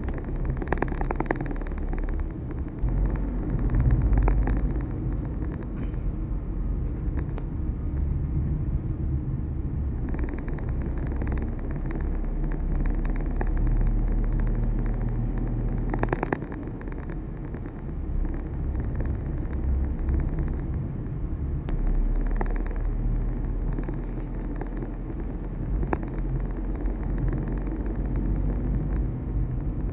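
A moving vehicle's steady low rumble of engine and road noise, with a few short clicks.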